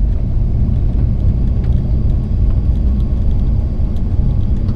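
2006 Toyota Tundra pickup driving in four-wheel drive: a steady low rumble of engine and tyres, with faint ticks now and then.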